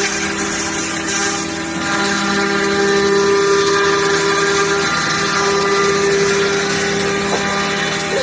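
Woodmaster PRO-MASTER-T4X4 five-axis CNC router running, its spindle motors giving a steady pitched hum over a rushing noise, the pitch shifting slightly about two and five seconds in.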